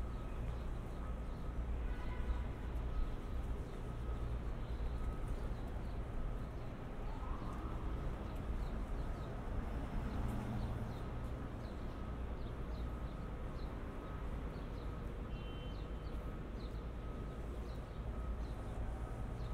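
City street ambience: the walker's footsteps on the sidewalk at about two steps a second over a steady low rumble of city traffic, with a few brief high chirps.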